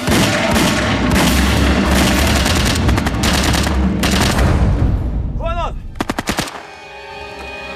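Rapid automatic gunfire, continuous for about four and a half seconds. It is followed by a brief shout and then a quick string of four or five sharp single shots, with music coming in near the end.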